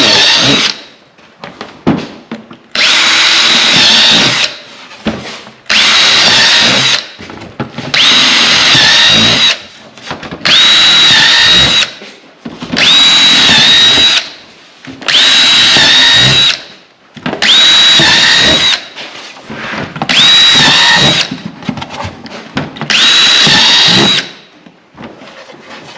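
Power drill boring a row of holes in a race car body panel: about ten short runs of a second or so each, a couple of seconds apart, each spinning up to a steady high whine.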